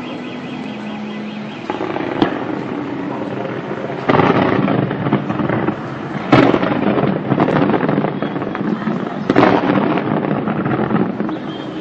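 Fireworks going off: a continuous dense crackle with several louder bangs, the first about two seconds in and more every two to three seconds after.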